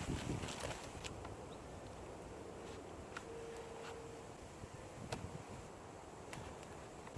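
Packaging being handled: a short rustle at the start, then a few scattered light clicks and taps.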